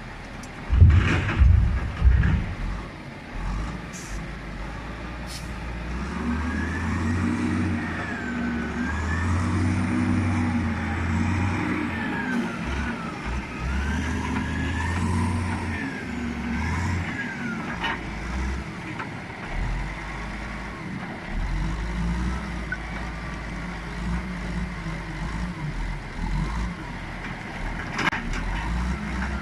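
Heavy diesel machinery working while a logging truck is unloaded. A couple of loud thumps come about a second in, then an engine revs up and down again and again, with a whine that rises and falls along with it.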